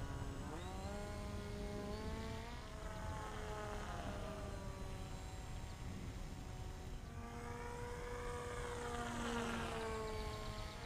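Volantex FPVraptor V2 RC glider's electric motor and propeller buzzing as it flies past, the pitch climbing then falling twice.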